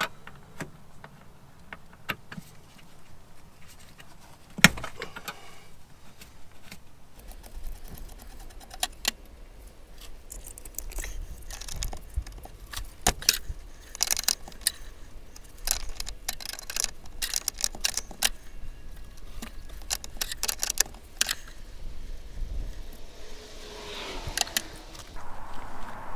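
Wrench and metal fittings clinking as the brake lines and master cylinder are unbolted from a 1987 Corvette, in many quick, irregular metallic clicks.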